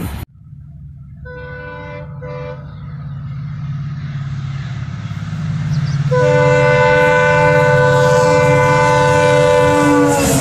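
WDP4D diesel locomotive approaching at speed, its engine rumble growing louder, sounding its multi-tone horn: two short blasts about a second in, then one long blast from about six seconds in, its pitch dipping slightly near the end as the locomotive reaches the camera.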